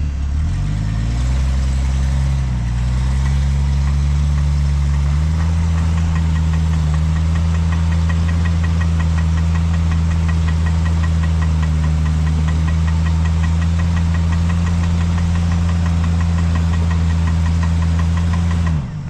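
Side-by-side UTV engine running under load: its pitch shifts over the first few seconds, then holds steady with a fast, even ticking. It drops off abruptly just before the end.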